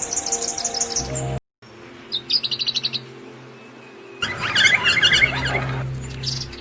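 Songbirds chirping in short clips joined one after another: high, quick chirps, a brief cut to silence, then a fast trill, then a louder burst of busy chirping, over a steady low hum.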